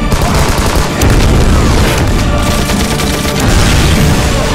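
Action film trailer soundtrack: rapid gunfire and heavy booms over loud music.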